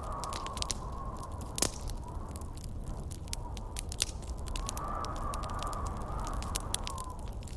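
Campfire crackling and popping, with one loud pop about one and a half seconds in, over a steady low rush of wind. A howling wind whistle wavers up and down near the start and again over the second half.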